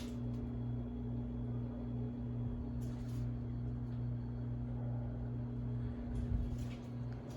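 Harbor Breeze Builder's Best ceiling fan motor running on its high setting with a steady low hum. A failing capacitor leaves the highest speed turning about as slowly as low speed.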